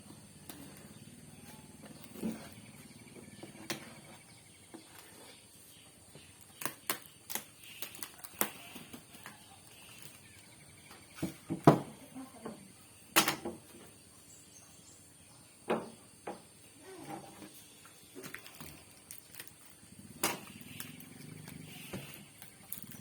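Scattered clicks and knocks of things being handled, loudest in a cluster about halfway through, over a faint low background hum.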